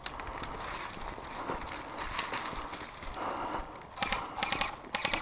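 Footsteps crunching on gravel and broken asphalt while walking, with gear rattling; a louder run of sharp crunches and clicks comes about four seconds in and again just after five.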